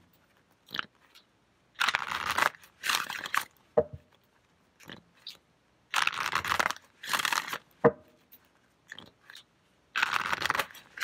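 A deck of tarot cards being shuffled by hand, in loud rustling bursts of half a second to a second that come a few seconds apart, with single short knocks in between.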